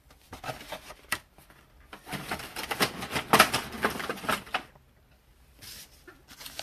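A cardboard trading-card box and its foil packs being handled: a few taps and clicks, then a few seconds of rustling midway.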